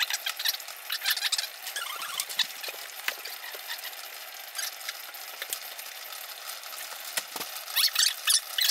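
Two small saucepans boiling on a stovetop, one of oils with beeswax melting in it and one of a water mix, giving a steady crackling bubble with many small pops. A spoon stirring clinks against a pan at the start and again near the end.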